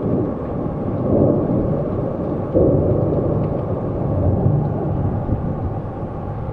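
Heavy rainstorm: a dense, low rumble of wind and rain on the microphone, swelling louder about a second in and again about two and a half seconds in.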